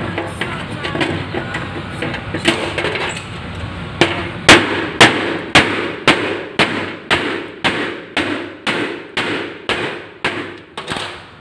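Hammer blows on the rusty sheet-metal casing of an old electric stove: light knocks and clatter at first, then from about four seconds in a steady beat of about two strikes a second, each ringing briefly in the metal.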